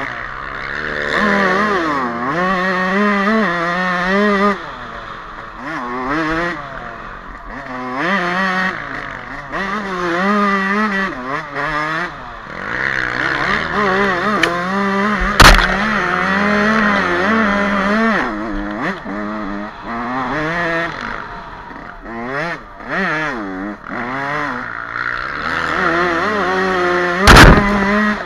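Yamaha YZ125 two-stroke single with an HGS expansion-chamber pipe, ridden hard: the engine revs up and drops again and again as the rider shifts through the gears and rolls off and on the throttle. There are two sharp knocks, one about halfway through and one near the end.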